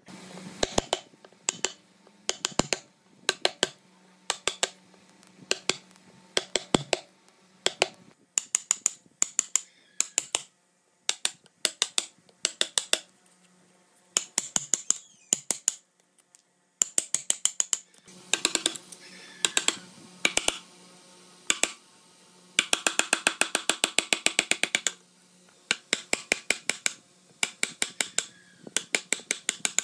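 Steel chisel prying and chipping rotten wood out of a hollow in a hardwood stump: sharp snaps and crackles of wood fibres splitting, in irregular clusters, with two longer runs of rapid crackling a little past halfway.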